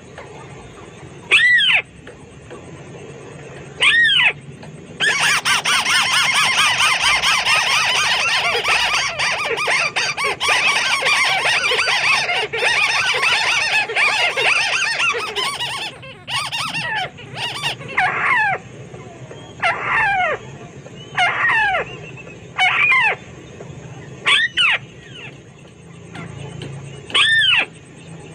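White-browed crake calling: loud single nasal notes every couple of seconds, then from about five seconds in a fast, dense chattering run lasting around ten seconds, then single notes again, coming closer together for a while.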